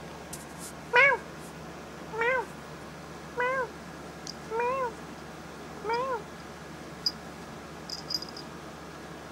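A domestic cat meowing five times, short meows a little over a second apart, each rising then falling in pitch; the first is the loudest. A few faint ticks follow near the end.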